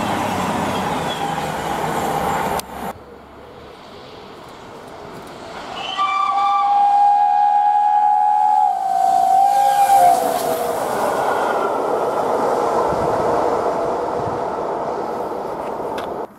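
Passing train running along the line, cut off abruptly about three seconds in. About six seconds in, the train horn sounds: a brief higher note, then a long steady lower note for about four seconds that dips slightly in pitch at its end, followed by the loud noise of the train running past.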